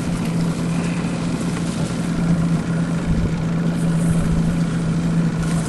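Boat outboard motor running steadily at low speed, a constant low hum with no change in pitch.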